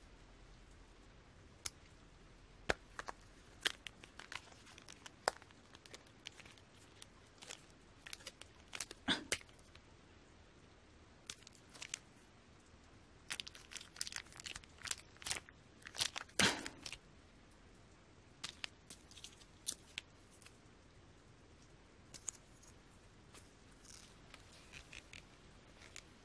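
Foley of eating ice cream from a small cup: scattered small clicks, scrapes and crinkles of a spoon against the cup, bunched in two busier stretches, over a faint hiss.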